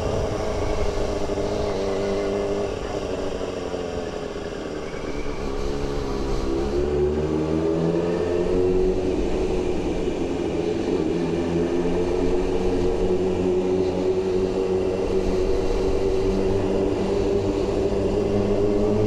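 2002 Suzuki GSX-R600's inline-four engine at low speed, its pitch falling as it slows over the first few seconds, then rising again about six to eight seconds in and holding fairly steady.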